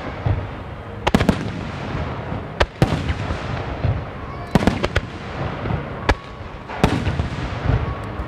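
Aerial fireworks shells bursting overhead: about eight sharp bangs at irregular intervals, some in quick pairs, with a low rumble carrying on between them.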